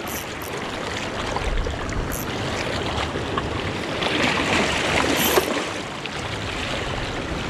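Water lapping and sloshing with wind on the microphone while a spinning reel is cranked in, a little louder about four seconds in.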